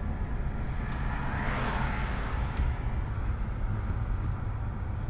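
Vehicle road noise while driving: a steady low engine and tyre rumble, with a swell of tyre hiss about one and a half seconds in, like another vehicle passing.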